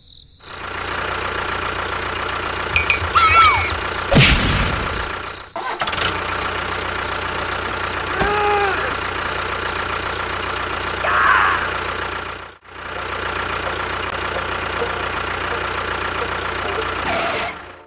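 A small engine-like motor running steadily, cut off briefly twice, with a few short high calls over it.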